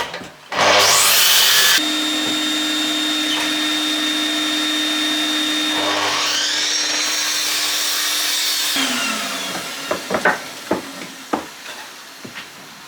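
Electric saw cutting 4x2 timber: the motor starts loudly about half a second in, runs with a steady whine, and winds down with falling pitch about nine seconds in, followed by a few knocks of the cut wood being handled.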